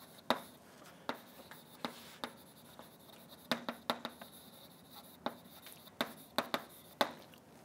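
Chalk writing on a blackboard: an irregular string of sharp taps and short scrapes as the letters are formed.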